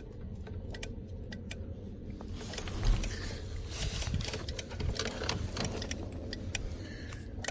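Wiper governor module of a 1991 Ford F-150 clicking at irregular intervals with the wiper switch on while the wipers stay still; the clicking shows the module is getting power. Some rustling of handling noise in the middle.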